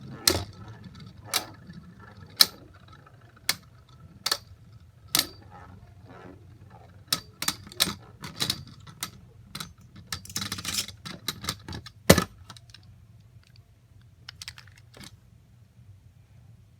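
A series of sharp clicks from objects being handled: about one a second at first, then a quicker cluster with rustling in the middle, the loudest click about twelve seconds in, then a few faint ticks.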